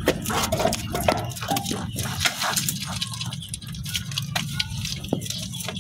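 Porcupine gnawing on corn: a run of irregular crisp crunching clicks as its teeth bite through the kernels.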